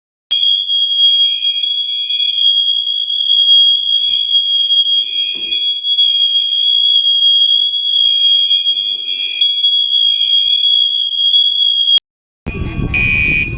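Apartment building fire alarm sounding one continuous high-pitched tone. It cuts off suddenly about twelve seconds in. After a brief gap comes a loud low rumble, with an alarm sounding in short blasts over it.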